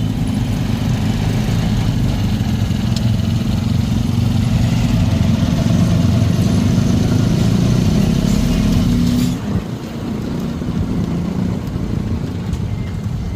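Motorcycle engine of a tricycle (motorcycle with sidecar) running steadily while riding in traffic. About nine seconds in the engine note drops away sharply and then carries on quieter, as if the rider eased off the throttle.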